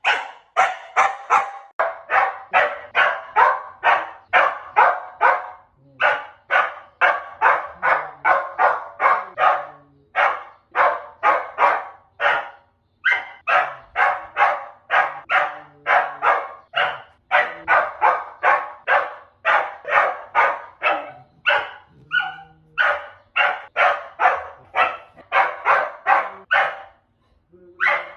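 A dog barking over and over in fast runs, about three barks a second, with brief pauses between runs.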